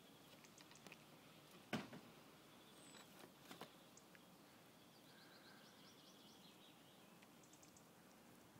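Mostly quiet, with a cat chewing on a mouse: one sharp crunch about two seconds in and a few softer clicks a second or so later. Faint, quick bird chirps in the background midway.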